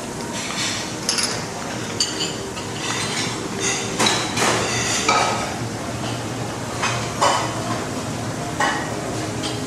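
Plates, bowls and cutlery clinking and knocking at a buffet: a run of irregular sharp clinks, the loudest about four and seven seconds in, over steady background noise.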